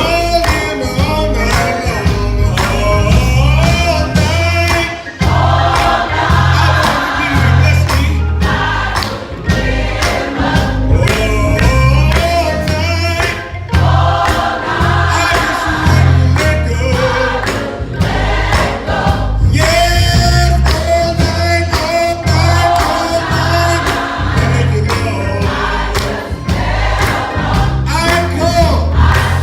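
A gospel choir singing with band accompaniment: full voices over a steady beat of low bass notes.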